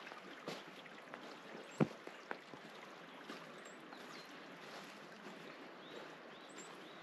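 Water flowing steadily in a mountain irrigation canal, an even rush, with a few sharp knocks, the loudest about two seconds in, and faint high chirps.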